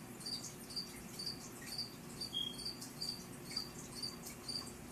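Crickets chirping steadily, short high chirps repeating about twice a second; these are the feeder crickets kept and bred for the turtle.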